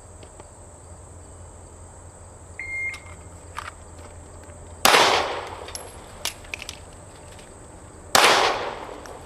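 A shot-timer beep, then a 9mm Glock pistol fires one shot, a few metal clicks of a magazine reload follow, and a second shot comes about three seconds after the first: a shoot-one, reload, shoot-one drill. Crickets trill steadily in the background.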